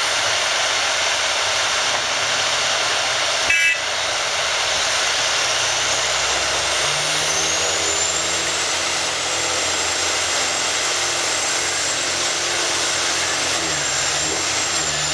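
Diesel engines of a Caterpillar 345D hydraulic excavator and Caterpillar 770 haul trucks running together under working load, their low engine note shifting as the machines work. A single sharp knock comes about three and a half seconds in, and a thin high whine rises around seven seconds in and then holds.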